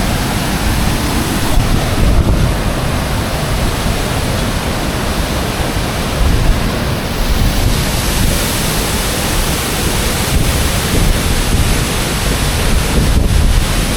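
Ouzoud Falls crashing down close by: a loud, steady roar of falling water, with wind buffeting the microphone.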